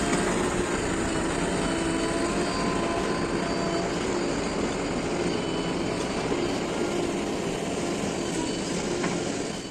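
Diesel engines of a backhoe loader and tractors running steadily under load, a dense mechanical noise with faint steady tones underneath. It cuts off suddenly at the end.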